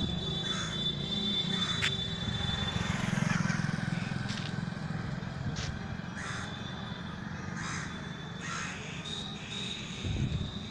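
Roadside outdoor ambience: a steady low rumble of traffic, with short bird calls repeated every second or so and a thin high steady tone in the first few seconds and again later.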